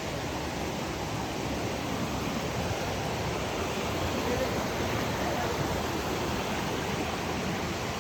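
Rushing river water, a steady even rush with no breaks.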